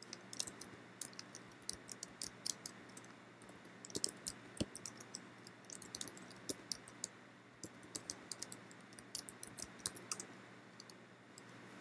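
Computer keyboard keys clicking as someone types, in quick irregular runs of keystrokes with short pauses between them.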